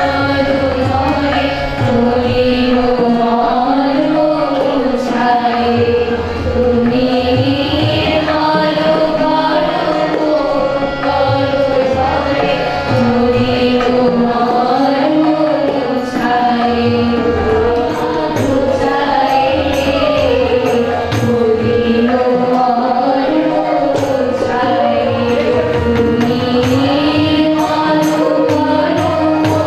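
A group of girls and young women singing a Bengali devotional song together into microphones, with a harmonium holding the melody and a drum beating underneath.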